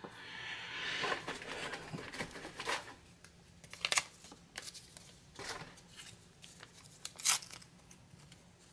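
Alcohol prep pad packet being torn open and handled: a rustling tear over the first couple of seconds, then scattered crinkles and sharp clicks, the loudest about four and seven seconds in.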